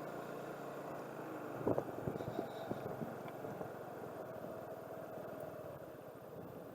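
A car moving at low speed, its engine and tyres making a steady drone, with a few knocks and clicks about two seconds in.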